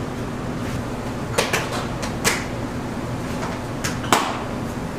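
Kitchen background noise: a steady low hum with a handful of sharp knocks and clicks scattered through it, the loudest about four seconds in.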